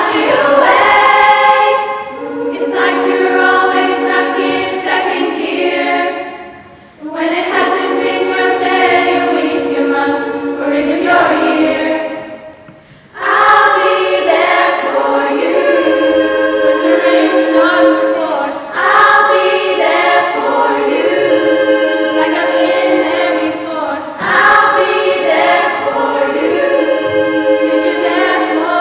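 Girls' school choir singing a cappella in parts, sustained chords in long phrases with two brief breaths between them.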